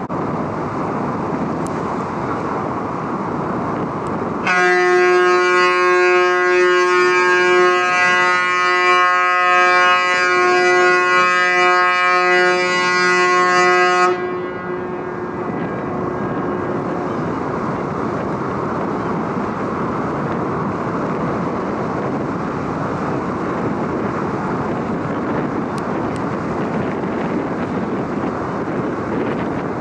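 Car ferry Azalea's ship's whistle sounding one long blast of about ten seconds, a low steady tone, as the ship leaves its berth: the departure signal. It cuts off suddenly and echoes briefly across the harbour, over a steady rush of wind.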